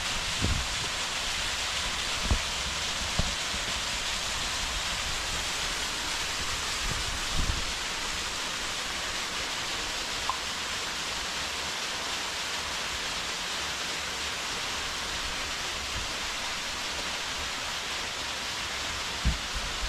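Steady rushing of water, an even hiss-like noise, with a few brief low thumps now and then.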